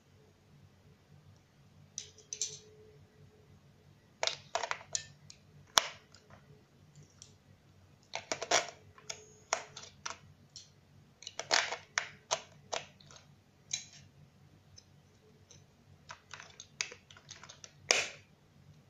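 AA batteries being pushed into a plastic toy's battery compartment against its spring contacts: a run of sharp plastic clicks and small knocks, coming in clusters with short quiet gaps.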